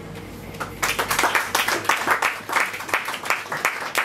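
Small audience applauding, the claps starting about a second in.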